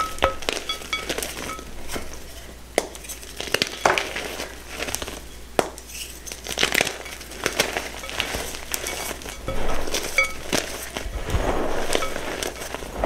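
Hands crushing and crumbling chunks of reformed gym chalk in a bowl: crunchy crackling with irregular sharp snaps as pieces break apart.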